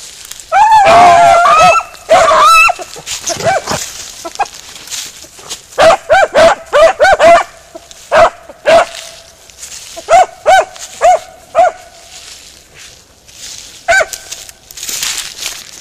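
Beagle harrier hounds barking and yelping in high pitches. A loud burst of overlapping yelps comes about half a second in and lasts about two seconds. Around six seconds in comes a quick run of about six short barks, then single barks every half second or so, and one more near the end.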